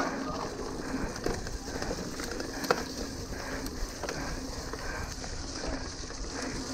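Mountain bike rolling fast down a dirt trail, heard from the rider's camera: steady tyre and riding noise with the bike rattling and sharp clicks and knocks over bumps, the loudest about two and a half seconds in.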